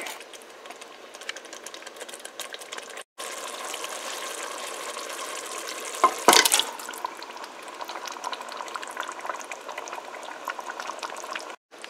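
Thick masala gravy simmering and sizzling in a steel pot while a plastic spatula stirs it, with a brief louder clatter about six seconds in. The sound breaks off for a moment twice.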